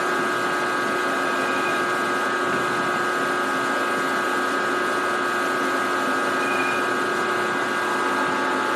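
Small milling machine's spindle running with a steady whine while a countersink chamfers the edge of a drilled hole in a steel part.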